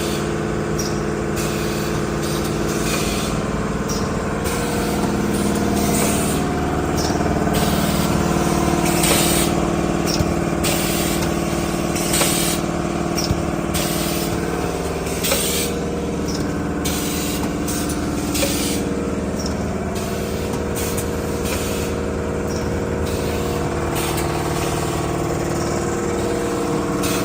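Urine bag welding machine running with a steady mechanical hum, with short hisses of compressed air repeating every second or so as the pneumatic press cycles.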